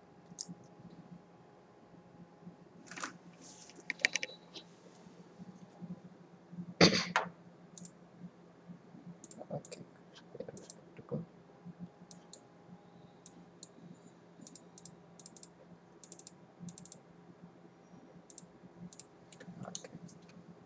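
Irregular clicks of a computer mouse and keyboard, scattered through, the loudest about seven seconds in, over a faint steady hum.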